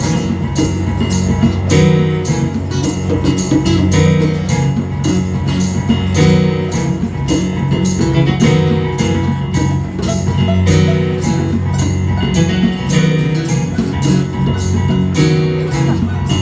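Live instrumental band music with a steady beat: a picked banjo, hand drums and an electric keyboard.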